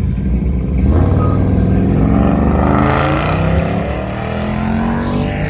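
A car engine running loudly and revving, its pitch rising and falling.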